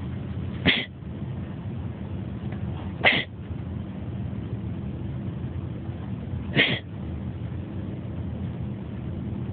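A pet sneezing three times, short sharp sneezes a few seconds apart, over a steady low background hum.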